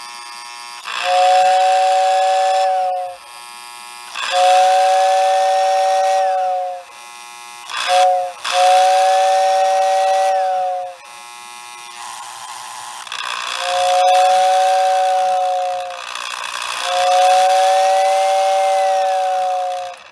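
Lionel whistle tender's electric two-chamber whistle blowing in two notes: two long blasts, a short one and a long one, then two more long blasts. The motor-driven whistle swells up and dies away with each blast. A steady buzzing hum runs between the blasts.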